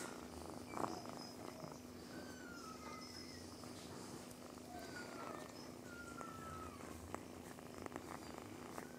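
Cat purring steadily and faintly while being stroked, with a steady low hum behind it and a few faint falling chirps.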